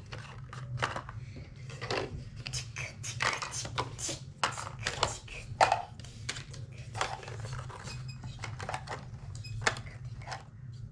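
Irregular plastic clicks, knocks and clatter as play groceries and a toy supermarket cash register are handled, over a steady low hum.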